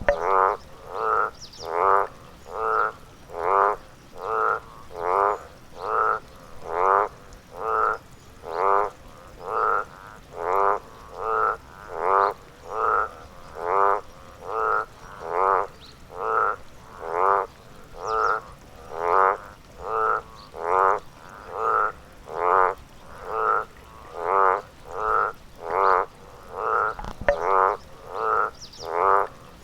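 A frog croaking in a steady, even series of short calls, about two a second.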